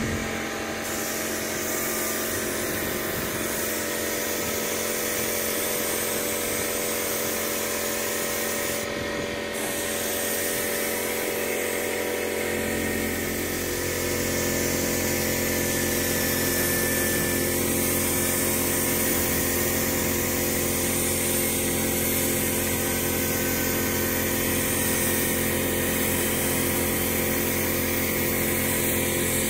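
Air-powered gravity-feed spray gun hissing as it sprays paint, over the steady hum of an air compressor running. The hiss stops briefly about nine seconds in, and the low hum grows stronger about twelve seconds in.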